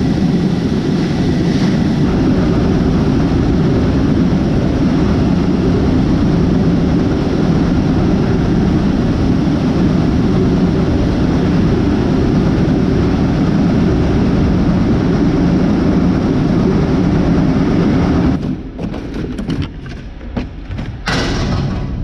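Grain bin unloading auger running steadily with a loud, low, dense noise, shutting off about eighteen seconds in. A few knocks and one short loud noise follow near the end.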